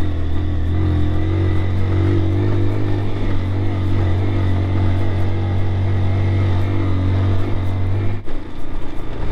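Honda CG Titan 160 single-cylinder motorcycle engine running steadily under way, with a low, even hum. The engine note drops off abruptly a little past eight seconds in.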